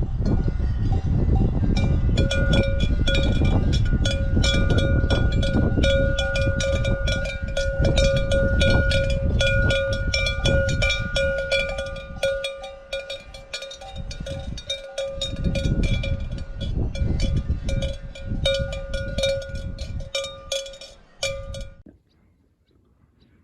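Many cowbells clanging together on a herd of cows, irregular metallic clanks ringing over a steady low rumble. The clanging thins out about halfway through and cuts off suddenly near the end.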